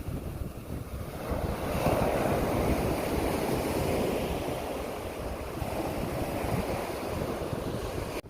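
Ocean surf breaking and washing up the beach, swelling about two seconds in and slowly fading, with wind buffeting the microphone.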